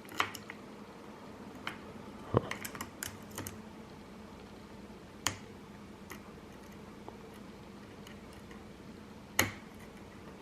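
Scattered sharp clicks and taps of lock picks and a tension wrench working in a Paclock 90A Pro padlock, with four louder clicks spread through and lighter ticks between.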